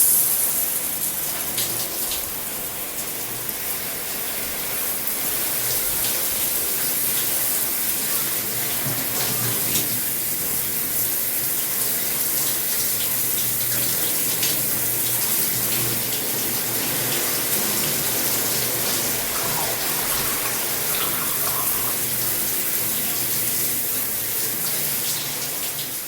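Shower running: a steady hiss of water spray with small spatters, easing off slightly near the end.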